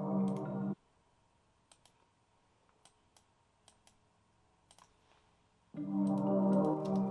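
A melody loop plays and cuts off suddenly under a second in, leaving a quiet gap with scattered short computer mouse and keyboard clicks; the loop starts again about a second before the end.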